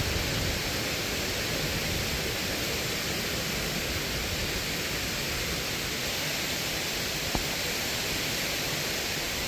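Waterfall rushing: a steady, even wash of falling water, with a single brief click about seven seconds in.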